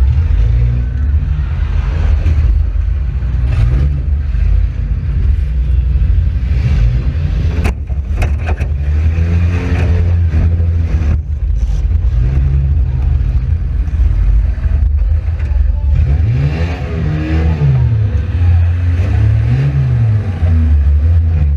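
Front-wheel-drive demolition derby car's engine running under heavy load, its revs rising and falling repeatedly, with a few sharp knocks about 8 and 11 seconds in.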